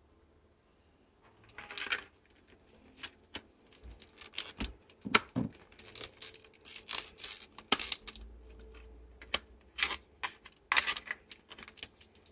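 Hard plastic toy parts clicking, knocking and scraping as a saddle is pushed and worked onto a Dewback action figure, with irregular clicks starting about two seconds in. The saddle's tabs are not snapping into place.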